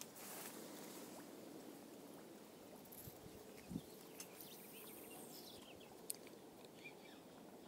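Near silence: faint outdoor ambience with a light click about four seconds in and another about six seconds in.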